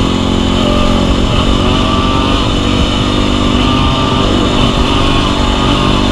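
Dirt bike engine running under way, its note rising and falling with the throttle, over a steady rush of noise.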